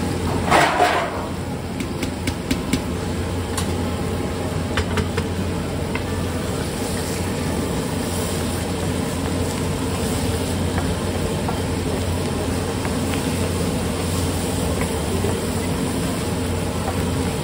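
Sliced onions, chopped tomatoes and spice powder sizzling on a large flat griddle (tawa) as a metal spatula stirs and scrapes them, with a few sharp clicks of the spatula against the griddle, over a steady low hum.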